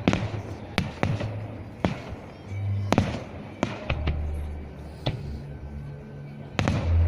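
Aerial fireworks shells bursting in a series of sharp bangs at irregular intervals, about a dozen, over a low rumble.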